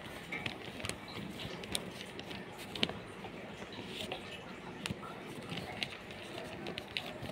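Handling noise of paper sheets and a plastic glue bottle: scattered light clicks and rustles over a steady background hiss.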